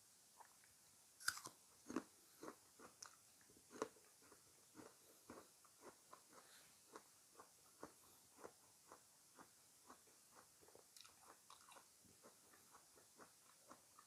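A person biting and chewing crunchy fresh fruit close to the microphone. A few sharp, louder crunches come in the first four seconds, then steady chewing at about two chews a second.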